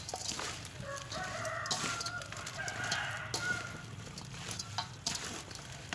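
A rooster crows once, a long call starting about a second in and lasting nearly three seconds, over the rustle and wet clicking of hands tossing fish fins with chili in a steel bowl.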